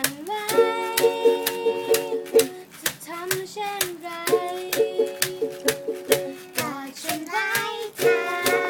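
Ukulele music: steady strumming with a melody line over it.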